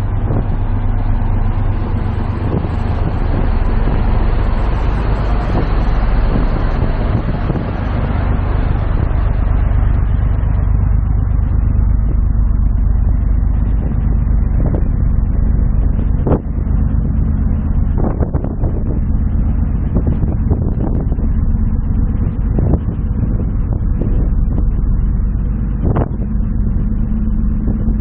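Steady low drone of the ferry's machinery heard on the open deck. A broad rushing hiss sits over it for about the first ten seconds, then fades away. A few light knocks come later on.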